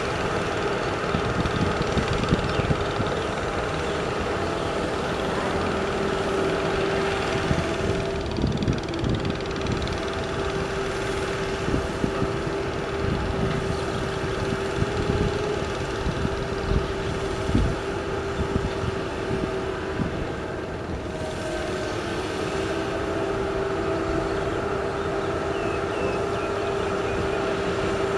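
Heavy construction machinery, a dump truck or excavator engine, running steadily with a droning tone, with irregular low knocks and clunks throughout.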